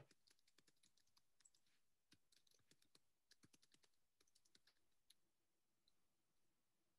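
Near silence with faint, quick, irregular clicks of typing on a computer keyboard, stopping a little past five seconds in.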